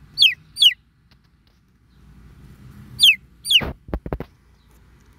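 Baby chicks peeping: short, high notes that fall sharply in pitch, in two pairs, one near the start and one about three seconds in. A few short, low knocks follow the second pair.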